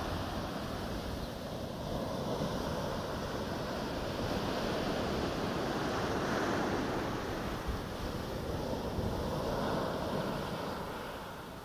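Small waves breaking and their foam washing up a sandy beach, a continuous hiss of surf that swells in a couple of surges, with wind buffeting the microphone.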